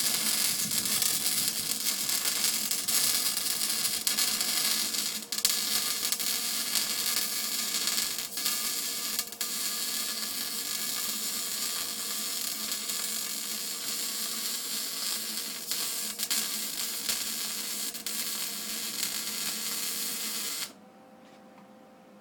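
Electric welding arc crackling and hissing steadily through one long weld of about twenty seconds, cutting off abruptly near the end, after which only a faint steady hum remains.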